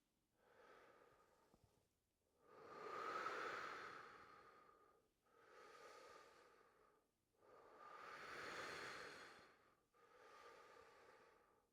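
A person breathing slowly and deeply, faint, about five long breaths in and out, paced with a slow arm exercise.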